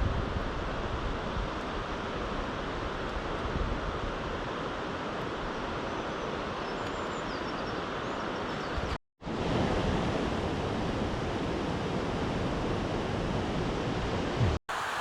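Steady outdoor rushing noise, with a few faint high bird chirps about halfway through; the sound drops out abruptly for a moment twice, near the middle and near the end.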